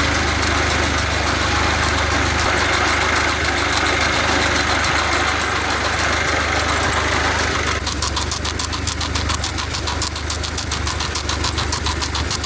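An engine running steadily nearby, with a fast, even ticking clatter setting in about eight seconds in.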